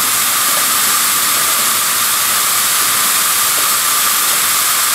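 Loud, steady hiss of compressed air through the vacuum former's pneumatic tool delivery valve as its air cylinder drives the lower table.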